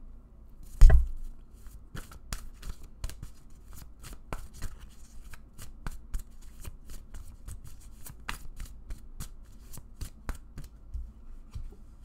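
A deck of cards being shuffled by hand: a quick, irregular run of small sharp clicks, with one louder thump about a second in.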